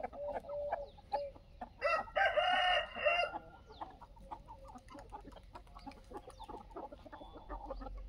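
A desi rooster crows once, about two seconds in, over chickens clucking and chirping throughout.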